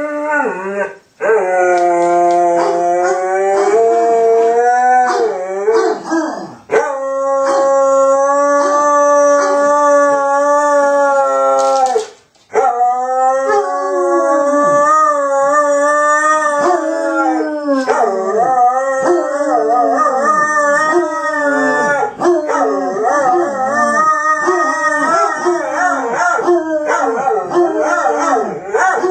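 Basset hound howling in long, drawn-out, wavering howls with a few brief breaks for breath: separation distress at being left by its owner. In the second half a second dog's howls overlap with it.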